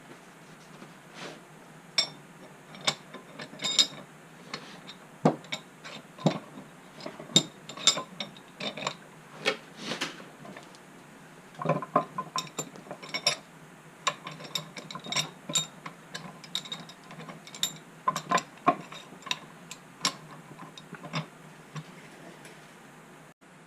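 Metal parts of a restored bench vise being handled and fitted back together: irregular sharp clicks, clinks and knocks of metal on metal, some louder than others, with busier clusters about two, seven and twelve seconds in.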